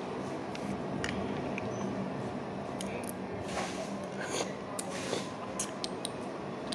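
Small cooked crabs being broken apart by hand and eaten: crab shells cracking in short sharp clicks, more of them in the second half, with sucking and chewing, over a steady background noise.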